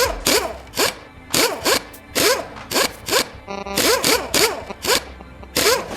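Video-game sound effects of the cylinder head cover bolts being unscrewed on a motorcycle engine: a quick zipping ratchet sound repeated about a dozen times, roughly two a second, each falling in pitch.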